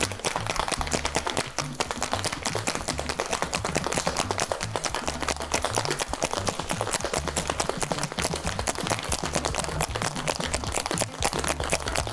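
Ice rattling in a metal cocktail shaker shaken hard and fast without a break: a dense, continuous clatter of knocks as the cocktail is shaken on ice.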